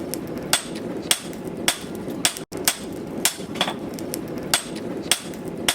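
Hammer blows on hot steel over an anvil, forging a knife blade from a steel bar: about two strikes a second, each with a short metallic ring, over a steady low rumble.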